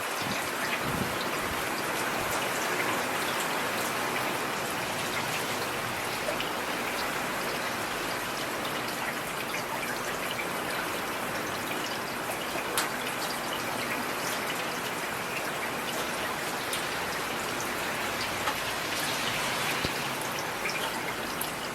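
Steady rain falling on a street, an even hiss of rainfall with scattered sharper drop splashes.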